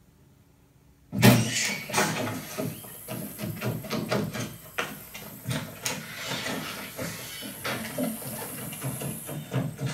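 A film soundtrack played loud through Klipsch home-theater speakers and heard in the room: near quiet, then about a second in a sudden loud bang followed by a busy, irregular run of knocks, thuds and clatter.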